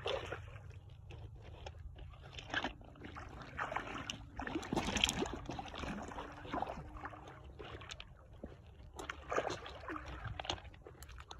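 Water sloshing and splashing in irregular surges over a steady low rumble, the loudest stretch about halfway through.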